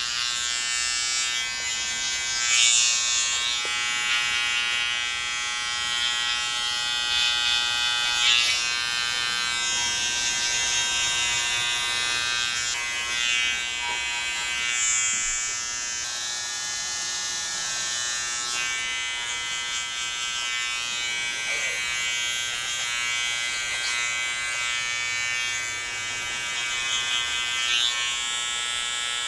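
Electric hair trimmer buzzing steadily as it shaves away neck hair below the hairline, growing briefly louder a few times as the blade passes over the hair.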